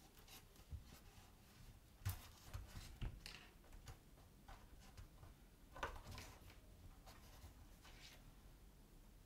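Faint rustling and scratching of leather being handled and hand-stitched, with thread drawn through the stitching holes. A few sharper clicks and scrapes come about two, three and six seconds in.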